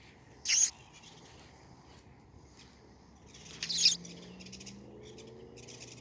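American woodcock giving its short, harsh peent call twice, about three seconds apart.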